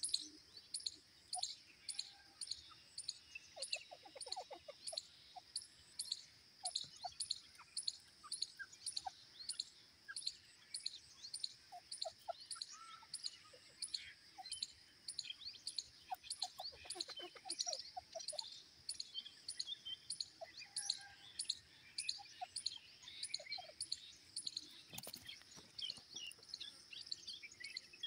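Birds chirping: a thin high chirp repeats about twice a second throughout, with scattered softer, lower chirps in short clusters.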